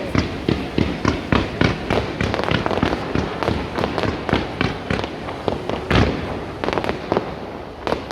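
Fireworks going off in rapid, irregular succession: many sharp bangs and crackles overlapping, with a louder bang about six seconds in.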